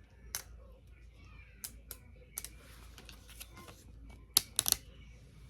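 Small sharp clicks and taps of hands handling a sheet of stick-on hair gems as one is picked off. A few scattered clicks come first, then a quick run of three louder ones near the end.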